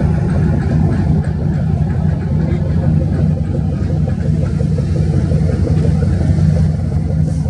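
Ship's diesel engine running at a steady speed: an even, low drone with no rise or fall in pitch.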